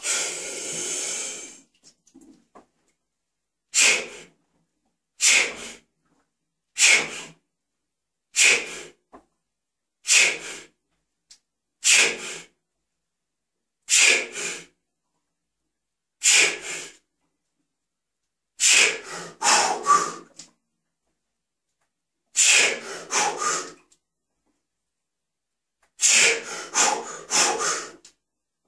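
A lifter's sharp, forceful breaths during a heavy barbell bench press (12 reps at 128 kg), one hissing burst with each rep. At first they come about every one and a half seconds. Later they space out and break into clusters of several quick puffs as the set gets hard near its end.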